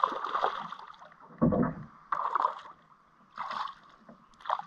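A small hooked fish splashing at the water's surface as it is reeled in beside a kayak, in several short bursts about a second apart. One low thud comes about a second and a half in.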